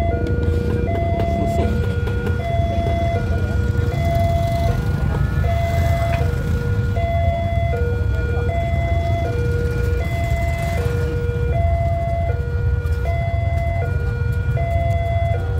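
A two-tone electronic signal repeating, high note then low note, each held about three-quarters of a second, like a hi-lo siren, over a steady low rumble.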